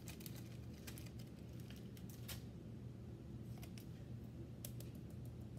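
Faint scattered clicks and light plastic handling noises from a zip-top bag and a plastic protein residue test swab being handled, over a low steady hum.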